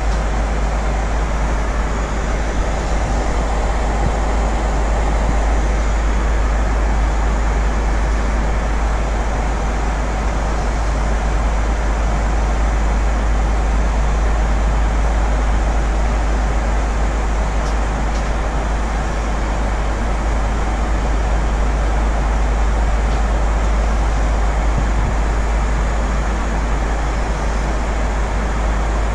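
Steady cabin noise of a Boeing 767-300ER airliner at cruise: an even rush with a deep rumble underneath.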